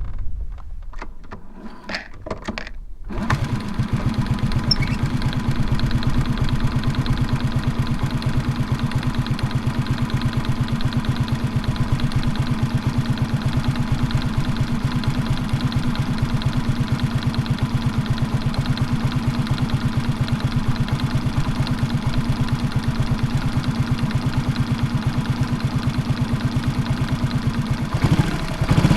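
Bored-up 88cc Honda Super Cub single-cylinder engine. A few clicks come first, then the engine starts about three seconds in and idles with a fast, even pulsing that changes near the end. It carries an abnormal metallic knock that the owner suspects is piston slap.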